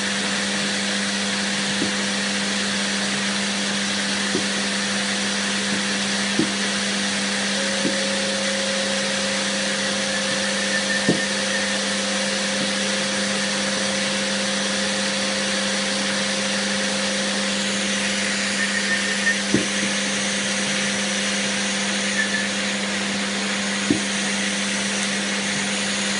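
Canister vacuum cleaner running steadily with its nozzle resting on the rug, an even motor drone with a steady hum, and a few light knocks over it.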